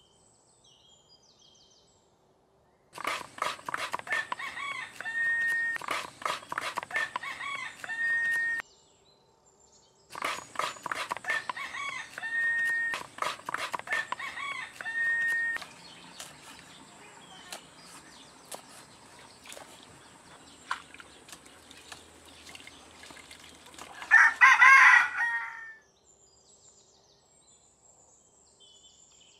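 A kitchen knife chops rapidly on a wooden block in two runs of about five seconds each, with roosters crowing behind. Near the end a rooster gives one loud crow, the loudest sound here.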